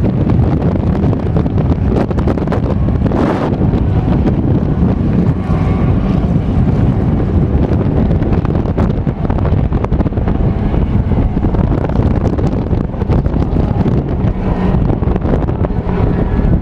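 Strong gusting wind buffeting the microphone in a dust storm, over the engines of dirt-track race cars running laps on a clay oval.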